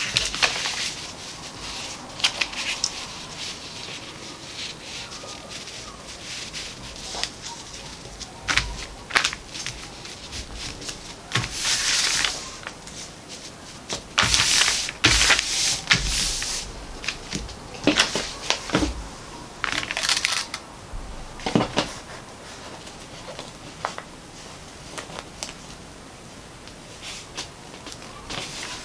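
A large paper sewing pattern piece rustling and crackling as hands shift and smooth it over folded cotton fabric, in several spells of a second or two, with scattered light knocks and taps.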